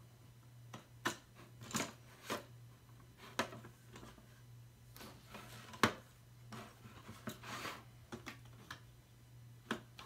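Irregular light clicks and taps of plastic toy parts being handled and fitted onto an Orbeez jewelry-maker stand, with one sharper knock about six seconds in.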